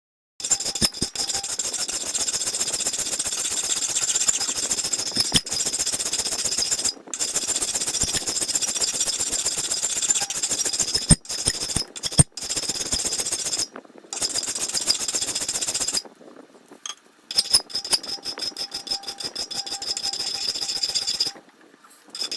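Angle grinder with a worn flap disc grinding the edges of a steel cleaver blank, a steady high grinding with several short breaks and a longer pause about two-thirds of the way through, where the disc comes off the metal.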